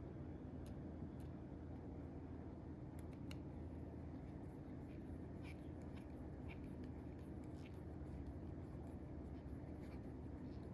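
Faint scattered clicks and light scratches of small knife parts being handled while an Ontario RAT 1 folding knife is worked on, over a steady low hum.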